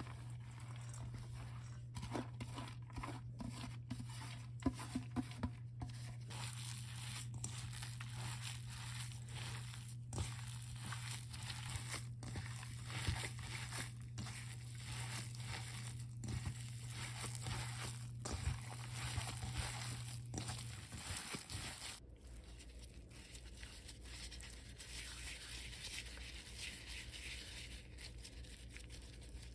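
Gloved hands kneading raw ground pork mixed with chopped vegetables in a stainless steel bowl: wet squelching and crackling with many small clicks, worked until the mixture turns sticky. A low steady hum sounds behind it until about three quarters of the way through.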